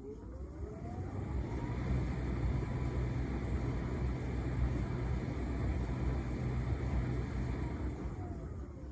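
Hotpoint SUTCD97B6PM tumble dryer: the drum motor whines up in speed over the first second or so, the drum turns steadily with a low hum and the rumble of laundry tumbling, then the motor winds down with a falling whine near the end.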